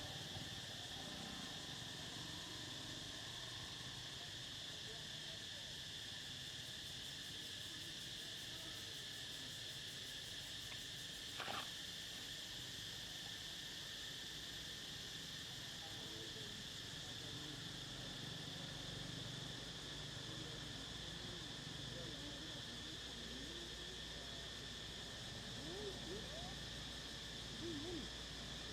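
Steady, high-pitched chorus of insects droning without a break, with one sharp click about midway and a few short chirping calls near the end.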